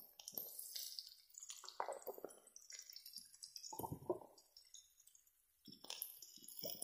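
Potato cubes frying in a little oil in a steel kadai: faint, scattered crackling and spitting pops.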